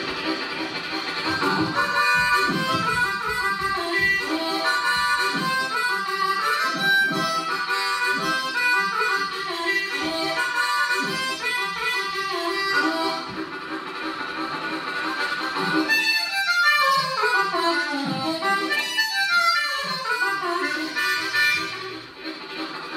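Solo harmonica played with hands cupped around it against a microphone, a fast rhythmic chugging train-imitation blues. Past the middle, two long downward pitch bends swoop from high to low.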